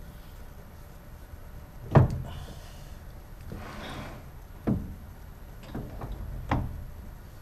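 Hard objects being set down and handled while a lathe job is set up: three sharp knocks and clunks, the loudest about two seconds in, with a short scraping hiss near the middle and a few lighter taps. The lathe is not running.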